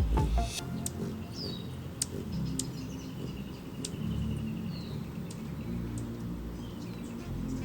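Small birds calling: a few short high chirps, a brief rapid trill a couple of seconds in, and scattered sharp ticks, over a low steady rumble.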